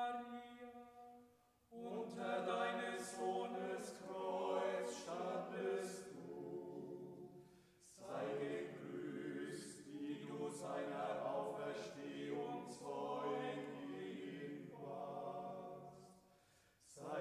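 Unaccompanied choir singing a slow Marian hymn in long held phrases, breaking for breath briefly after the first held note, about eight seconds in, and just before the end.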